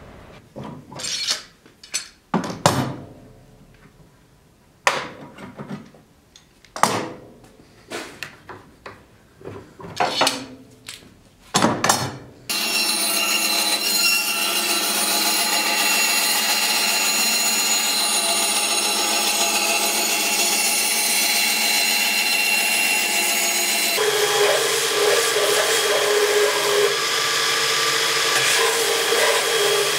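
Irregular strokes and knocks of hand work on a wooden board, then from about twelve seconds a steady electric band saw cutting the pine scabbard blank with a constant whine. About two-thirds of the way in this gives way to a different steady machine noise, a belt grinder running.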